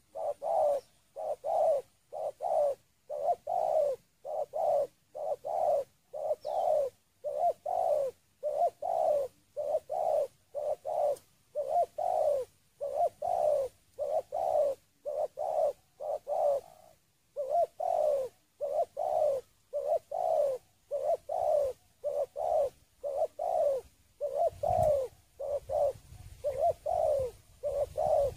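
Spotted dove (terkukur) cooing in a long rapid run of short falling coos, two or three a second, broken once by a brief pause about 17 seconds in.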